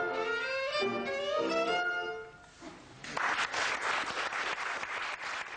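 Solo violin playing a melody that ends about two seconds in; after a brief pause an audience breaks into applause.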